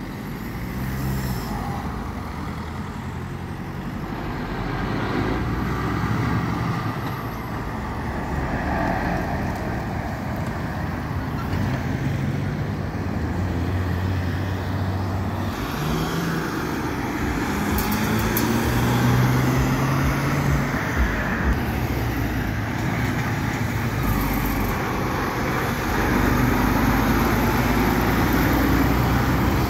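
Road traffic: cars and heavy trucks passing, their engines rising in pitch as they pull away. Near the end a semi-trailer truck's diesel engine runs close by as it turns, the loudest part.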